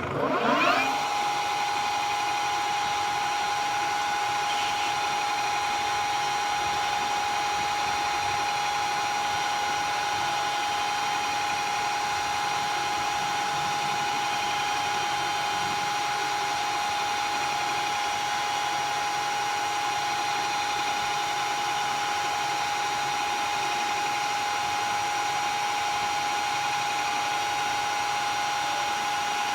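Okuma-Howa STM 2V vertical milling machine's spindle starting up, its whine rising in pitch for under a second, then running steadily at speed with a constant high whine.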